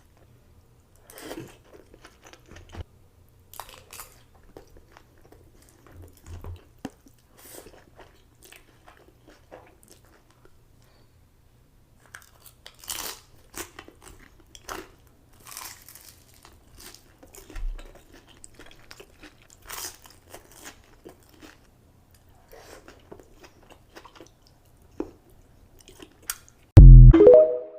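Close-miked eating: a person chewing and biting with crisp crunches every second or so. Near the end comes one brief, much louder low thump.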